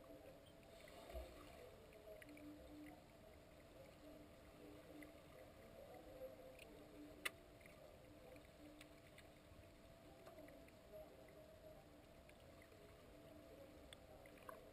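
Near silence: faint underwater pool ambience heard through the camera's housing, with a steady low hum and a few faint clicks, one sharper click about seven seconds in.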